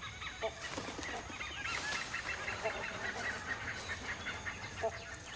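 A flock of forest birds calling: many short chirping calls overlapping, with a few lower calls now and then and a steady high tone beneath.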